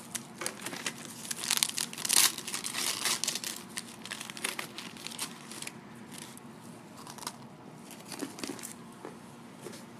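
Foil pouch and inner wrapper of a freeze-dried astronaut ice cream sandwich crinkling as it is unwrapped by hand. The crinkling is dense for the first few seconds, then thins to scattered crackles.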